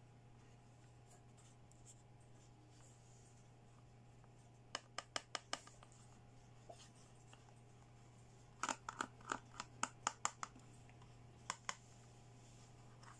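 Hard plastic toy handbag parts clicking and tapping as they are handled: a quick run of about six clicks around five seconds in, a denser run of taps a few seconds later, and two more near the end, over a faint steady hum.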